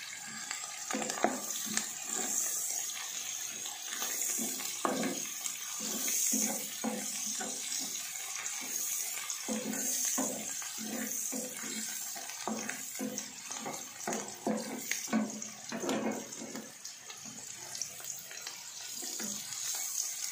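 Chopped garlic, dried shrimp and mushrooms sizzling in hot chicken fat in a non-stick pan, with a wooden spatula scraping and knocking against the pan in irregular strokes as the food is stirred.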